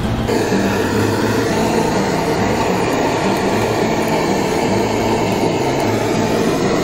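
Handheld gas torch burning with a steady flame noise as it is played over the honey-glazed skin of whole roast chickens.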